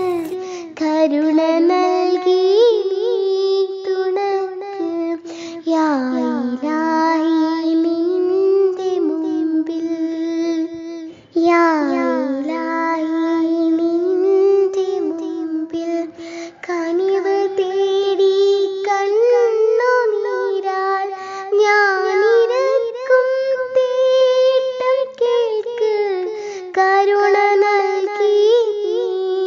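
A high-pitched voice singing a melody in long, held phrases.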